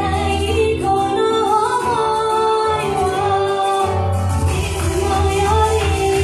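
Idol-pop song sung by female voices over a sustained bass backing, with a steady drum beat coming in about four seconds in.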